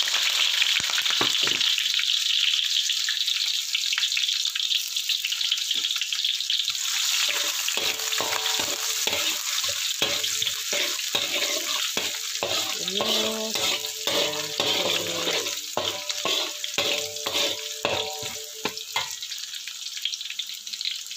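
Sliced shallots and garlic sizzling in hot oil in a wok. From about a third of the way in, a spatula stirs them, scraping and knocking against the wok many times, and then stops shortly before the end.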